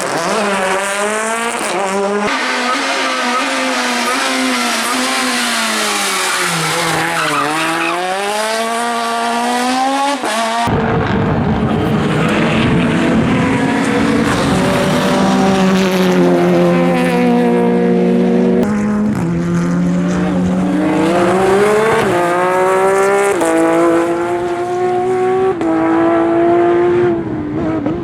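Rally cars driven hard on a stage. The engine revs rise and fall, sinking low as if braking for a corner and then climbing again. About ten seconds in, the sound changes abruptly to another car accelerating through the gears, its engine pitch climbing and dropping back at each upshift.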